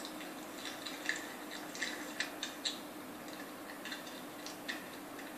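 Homemade shampoo slime being handled and squeezed, giving a string of small, irregular wet clicks and pops over a faint steady hum.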